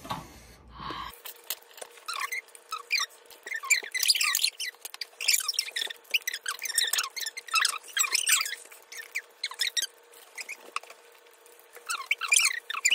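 Squeaky, high-pitched chatter of several voices sped up in editing, too fast to make out words, over a steady hum; the low end of the sound cuts out about a second in.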